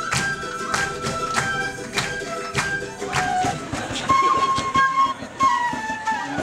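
Andean folk music outdoors: flutes playing a melody over a steady drum beat. The drum strokes are strong in the first half and weaker later, while the flute line steps down toward the end.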